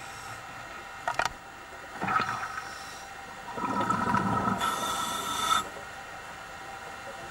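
Scuba regulator breathing underwater: a sharp click about a second in, then a longer stretch of bubbling rumble and hiss from about three and a half to five and a half seconds in, over a faint steady hum.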